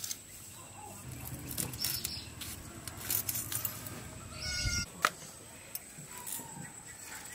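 Small mud fish being cleaned against the curved blade of a bonti, a floor-standing kitchen blade: soft, irregular scraping and rubbing with a few sharp clicks, the sharpest about five seconds in.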